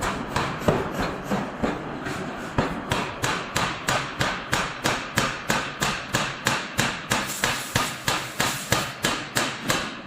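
Hammer blows on hot iron being forged. Irregular at first, then settling about two and a half seconds in into a steady rhythm of about three blows a second.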